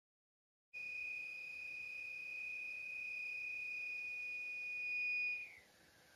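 Steady high-pitched whistle of air being sucked by a vacuum cleaner through a corrugated plastic conduit as string is fed into its open end. About five seconds in, the pitch drops and the whistle goes much quieter.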